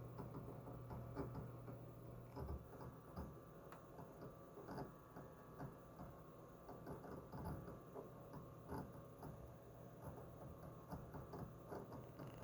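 HGST/WD Ultrastar DC HC520 12 TB helium hard drive writing: faint, irregular chirps and clicks from the read/write heads seeking, over a steady hum from the spinning drive.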